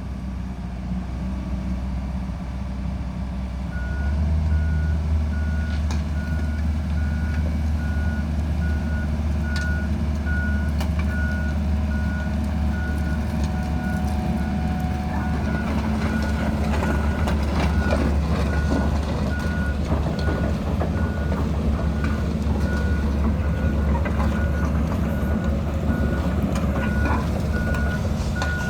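The diesel engine of a Komatsu PC160LC-7 hydraulic excavator is running steadily and gets louder about four seconds in. From then on its travel alarm beeps evenly, about once a second, the warning that the tracked machine is moving.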